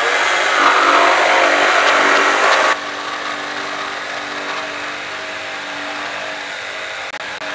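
Corded jigsaw running and cutting a curve in a pine board, a steady buzzing saw noise. About three seconds in it drops noticeably in level and carries on more quietly.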